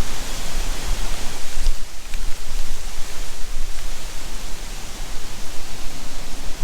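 Strong wind buffeting the microphone: a gusting low rumble over a steady hiss.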